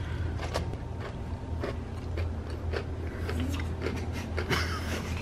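Scattered light clicks and taps of pretzel-and-Rolo sandwiches being pressed and handled on a metal baking pan, over a steady low hum.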